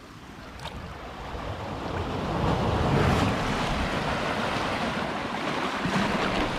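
Sea surf washing in over shoreline rocks, a steady rush that swells about two seconds in and stays loud, with wind buffeting the microphone.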